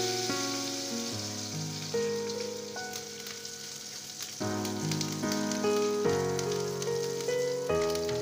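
Whole spices (cumin seeds, dried red chillies and bay leaves) sizzling in hot oil in a kadai as they are stirred with a wooden spatula, fried until they give off their aroma, with background music over it.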